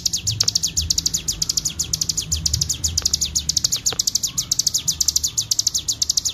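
Ciblek gunung (cigun) singing a continuous ngebren trill: an unbroken run of fast, high, downward-sweeping notes, about a dozen a second. A faint low rumble lies underneath.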